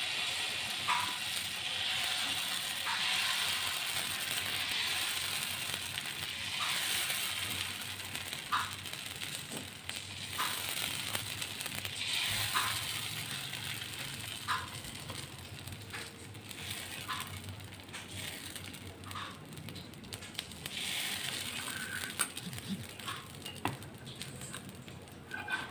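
Dosa batter sizzling on a hot greased tawa while the bottom of a steel bowl spreads it in circles, with a short scrape of metal on the pan about every two seconds. The sizzle is strongest at first and thins as the batter spreads.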